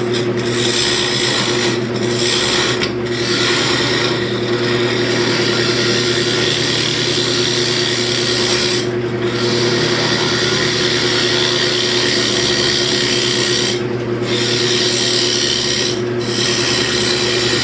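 Wood lathe running steadily while a hand-held turning tool cuts into a spinning wooden bowl blank, a continuous scraping hiss over the motor's hum. The cutting noise breaks off for a moment several times as the tool leaves the wood.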